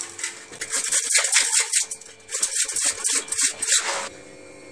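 Raw green papaya being grated on a stainless-steel hand grater: repeated rasping strokes, about two a second, that stop about four seconds in.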